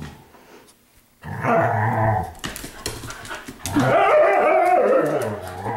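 Dogs growling and vocalizing in rough play. After a quiet first second comes a short burst, then a louder, longer wavering growl about four seconds in.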